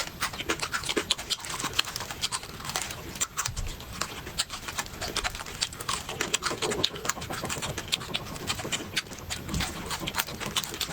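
A person chewing and crunching food close to the microphone: dense, irregular crisp clicks and wet mouth sounds.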